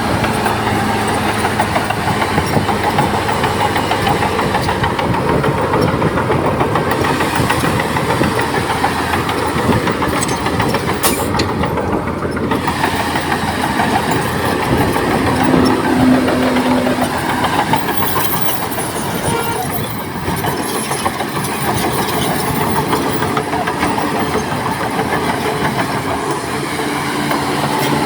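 Crawler bulldozer's diesel engine running steadily under load, with clatter from its steel tracks.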